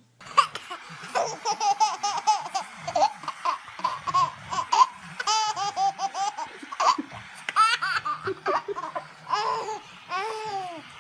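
A baby laughing and squealing in quick high-pitched bursts, starting suddenly.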